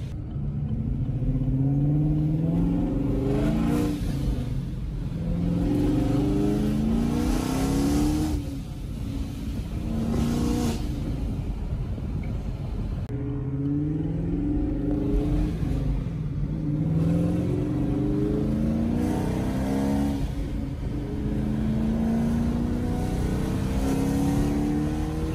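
2017 Camaro SS's 6.2-litre V8 with a ProCharger D1X supercharger accelerating hard several times, its pitch climbing and then dropping back over and over. The engine and blower sound like an airplane.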